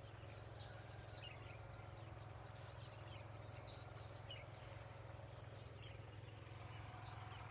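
Faint open-country ambience: an insect calling in a steady rapid pulse, with scattered short bird chirps, over a low steady hum.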